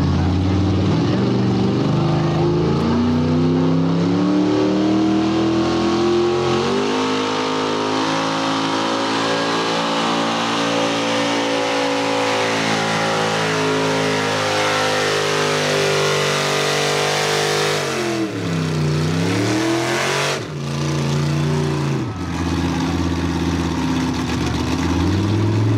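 Mega truck's big engine revving hard, its pitch climbing over the first few seconds and then held high. About eighteen seconds in it drops sharply off the throttle and revs back up, and it dips briefly again a few seconds later.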